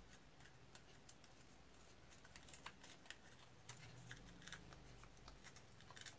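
Faint, scattered small clicks and scrapes of a screwdriver and the plastic base of an electric kettle being handled as its screws are driven in during reassembly.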